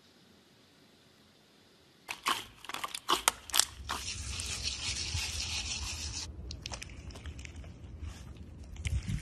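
Near silence at first, then from about two seconds in, sharp crackling crunches of foam-bead slime (floam), a steady hiss for about two seconds as sprinkles and clay slices are poured onto the beads, and then softer crunching and crackling as a hand presses into the beads.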